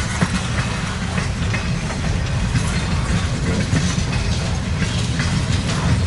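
Freight train of covered hopper cars rolling past at trackside, its wheels clicking over the rail joints now and then, with a steady low rumble of wind on the microphone.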